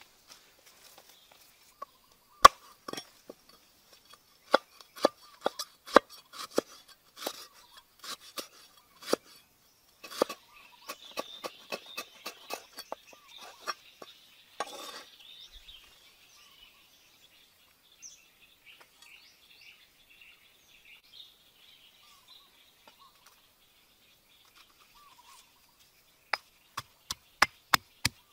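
Cleaver chopping lemongrass on a wooden board, an irregular run of sharp chops through the first half. Then a quiet stretch with faint chirping, and near the end a stone pestle pounding in a stone mortar with quick, regular strikes.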